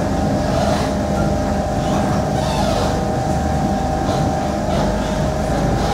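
Kawasaki Heavy Industries C151 metro train running at speed, heard from inside the carriage: a steady rumble of wheels on rail with a steady motor whine over it.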